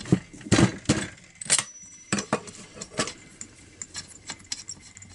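Irregular sharp metallic clinks and taps of a spark plug wrench working the spark plug out of a Husqvarna 240 chainsaw's cylinder.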